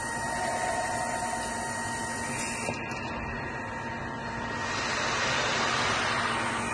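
Steady industrial machinery hum and noise with a constant low drone and a whine over it. The rushing noise swells for a couple of seconds from about four and a half seconds in. There is one light click a little under three seconds in.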